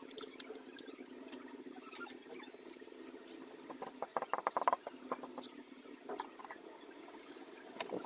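Crumpled tissue paper crinkling as it is pressed and dabbed onto wet watercolour paper to lift paint, a quick run of crackles about four seconds in among scattered small clicks.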